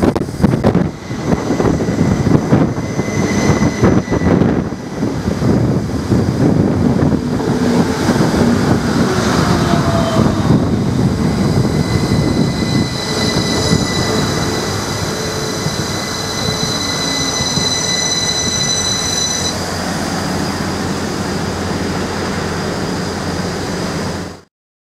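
Class 333 electric multiple units on the line, running close by: a heavy rumble with sharp clicks from the wheels in the first few seconds. Later there is a steady whine of several high tones over the running noise, which stops about two-thirds of the way through, then a steadier hum that cuts off abruptly near the end.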